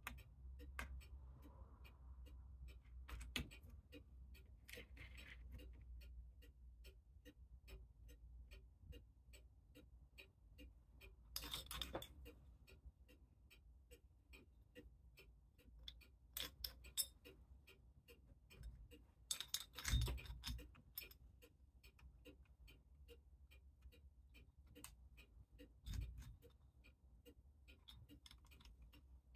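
A clock ticking steadily and quickly, with a few clinks and knocks of metal parts being handled in a mainspring winder, the loudest about twenty seconds in.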